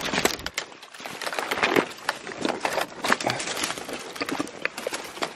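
Dry twigs and branches snapping and scraping and dead leaves crunching as a person pushes through dense, leafless brush: a busy, irregular run of cracks and rustles.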